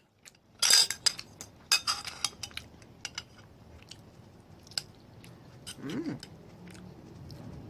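Close-miked eating of ginger beef and rice: bites and chewing with sharp mouth clicks, and two louder bursts about one and two seconds in.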